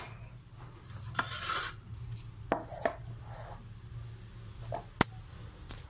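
Kitchenware handled on a counter: a plastic strainer and plates knocked and scraped, with a rubbing scrape a little after a second in and a few sharp knocks, the sharpest about five seconds in. A steady low hum runs underneath.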